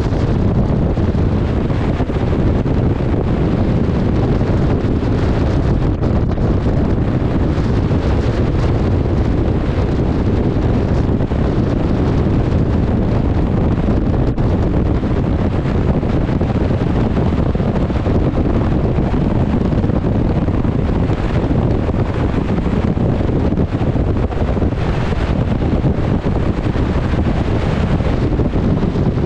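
Strong wind buffeting the microphone, a steady low rumble, over the rush of a choppy, wind-whipped sea.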